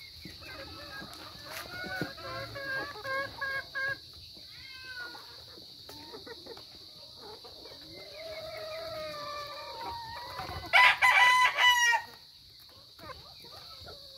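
Chickens clucking, with a quick run of repeated clucks about two seconds in. Near the end a rooster crows loudly for about a second.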